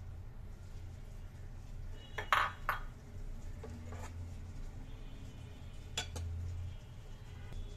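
Kitchen utensils clinking against a ceramic plate as spices are measured out for a coating mix. There are two sharp clinks close together a little past two seconds in, fainter taps around four seconds, and one more about six seconds in, over a steady low hum.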